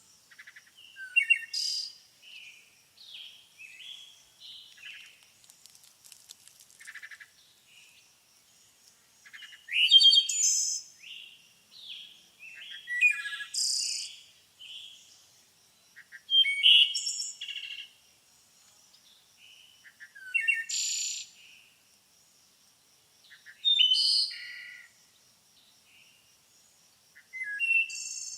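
Songbirds singing: short, varied chirps and trills, with a louder phrase every few seconds, over a faint steady high-pitched tone.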